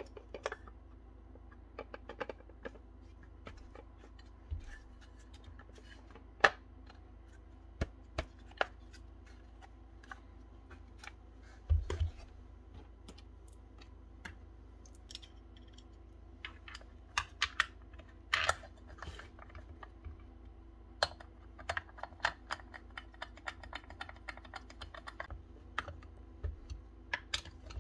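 Irregular clicks, taps and light knocks of hard plastic and metal parts being handled as a Bosch GBH 5-40 DE rotary hammer's motor housing is fitted onto its gear housing and small screws are picked up, over a faint steady hum.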